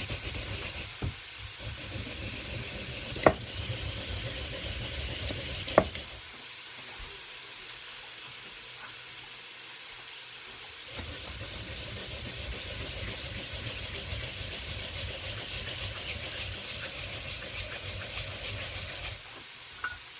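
Food frying in a hot pan, a steady sizzle that eases off for a few seconds midway and then comes back. Sharp knocks at about three and six seconds in are the loudest sounds.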